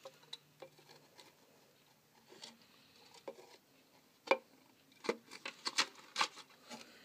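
Scattered light taps and clicks of handling against a clear plastic enclosure. They are sparse at first, then come more often and louder in the second half.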